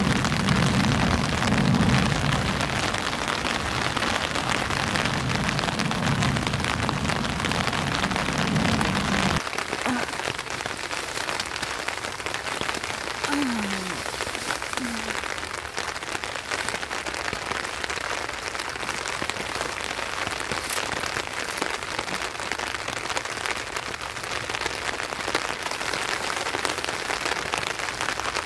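Steady rain falling on a backpacking tent's fly, heard from inside the tent. A low rumble under the rain stops abruptly about nine seconds in.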